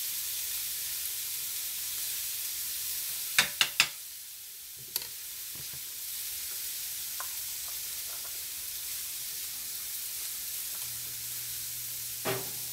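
Frozen mixed vegetables and minced garlic sizzling steadily in butter in a wok. A quick run of three sharp taps comes about three and a half seconds in, one more a second later, and another near the end.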